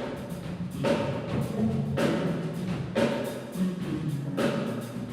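Drum kit played hard: heavy strokes roughly once a second, each with a cymbal crash, over ringing drum tones.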